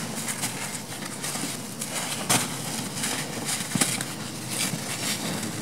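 Hands crushing a large lump of packed black sand. It makes a steady gritty crumbling, with sharp cracks as chunks break off, the loudest a little over two seconds in and again just before four seconds.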